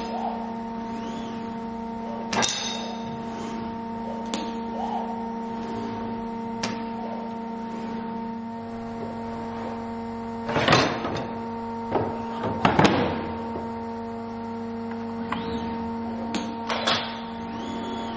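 Steady electrical hum from the assembly cell's machinery, with irregular clunks and rattles as plastic workpiece carriers are moved along the aluminium-profile transfer line. The loudest clunks come in a cluster a little past the middle.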